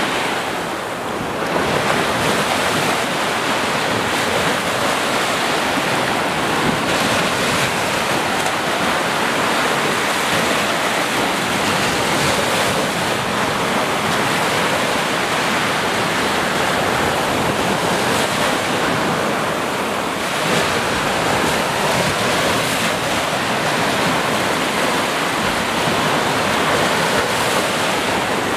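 Small waves breaking and washing up a sandy beach: a steady rush of surf that swells and eases slightly as each wave comes in.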